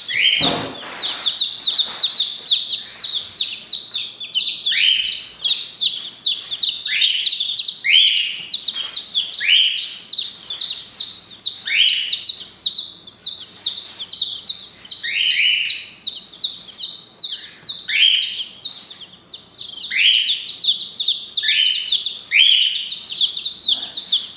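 A brood of Brahma chicks peeping continuously, a dense chatter of short high peeps with louder peeps that slide down in pitch every second or two.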